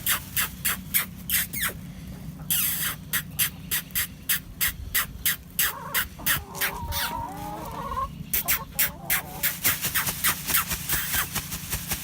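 A person calling chickens with rapid, evenly repeated mouth clicks, about three a second, with a short break about two seconds in. A stretch of wavering, warbling calls comes in the middle, and a steady low hum runs underneath.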